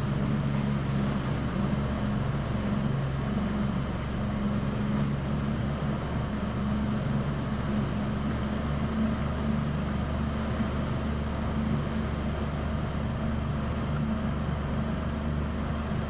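Motorboat engine running at a steady cruising speed: a low, even hum mixed with the rush of wind and water, heard from on board.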